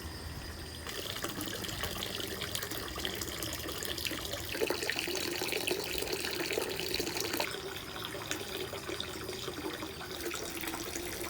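Water running steadily from the spout of a shrine's hand-washing fountain (temizuya) into its basin, starting about a second in.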